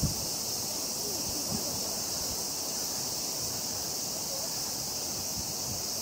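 Steady high-pitched insect chorus with wind buffeting the microphone in low, uneven gusts.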